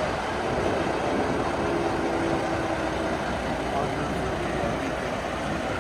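Parked semi trucks' diesel engines idling, a steady rumble with a constant hiss over it.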